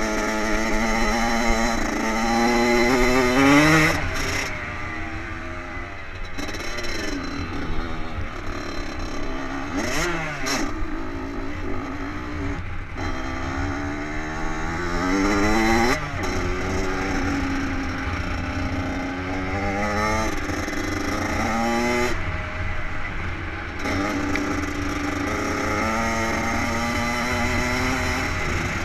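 A two-stroke dirt bike engine revving hard while being ridden, its pitch climbing through the revs and dropping away again several times, with long climbs a few seconds in and about halfway through.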